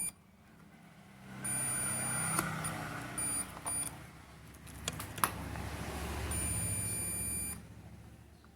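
Digital multimeter in continuity (buzzer) mode beeping as its probes are held across parts of an LED TV power supply board: a steady beep of about a second, two short blips, then another beep of over a second near the end, with a few probe clicks in between. The beep means the meter reads a near-short between the probes.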